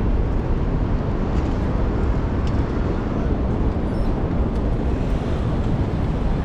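Steady wind rumble on a cyclist's camera microphone while riding, with city street traffic mixed in.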